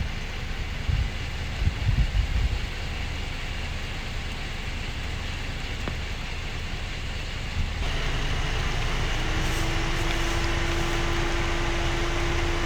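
Wind buffeting the microphone in gusts over a steady rushing noise; about eight seconds in it changes abruptly to a steadier, slightly louder rushing noise, with a low steady hum joining a second later.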